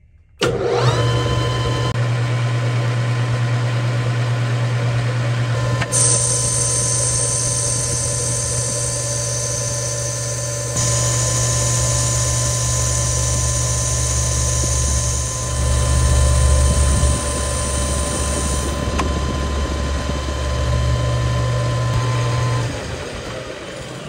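Metal lathe running steadily while a cutting tool turns a taper on a 304 stainless steel bar, a steady hum with a constant higher tone over it. A high-pitched cutting hiss joins in from about six seconds in to about nineteen seconds, and the machine sound drops away near the end.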